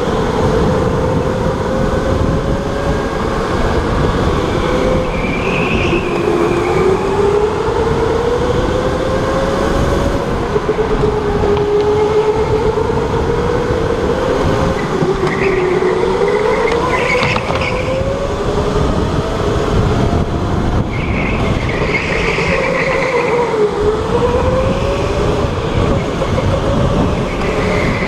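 Electric racing go-kart's motor whining, its pitch rising and falling as the kart speeds up and slows through the corners, over a steady rumble of the wheels and chassis. A few short tyre squeals come in the turns.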